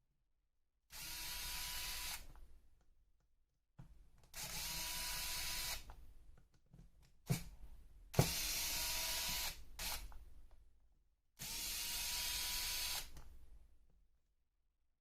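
Small cordless electric screwdriver running in four short bursts of about a second and a half each, driving out small screws to open the RC car's gear housing. Between the second and third bursts there are a couple of sharp clicks.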